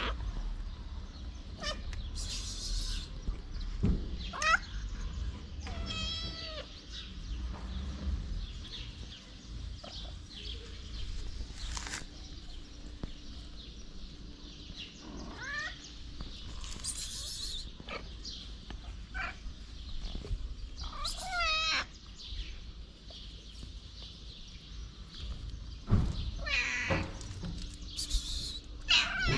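Stray cats meowing on and off, about half a dozen short, wavering meows spread through, over a steady low rumble.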